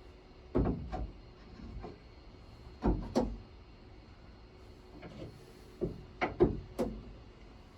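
Tools knocking and clattering against a holder as they are tried in its slots: a few sharp clunks about a second in, another pair around three seconds in, and a quick cluster between six and seven seconds.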